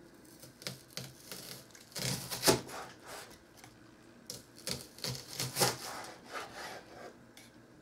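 Chef's knife slicing a peeled onion into rings on a plastic cutting board: a run of irregular cuts and taps of the blade on the board, the loudest about two and a half seconds in.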